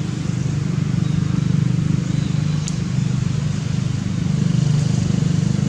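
An engine running steadily with a low, even hum, and a single sharp click a little past halfway.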